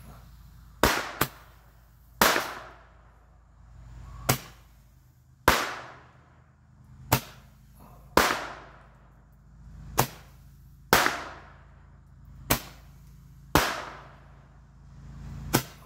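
Roman candle firing a series of about a dozen sharp bangs, roughly one every second or two at an uneven pace, many with a short fading tail after the bang.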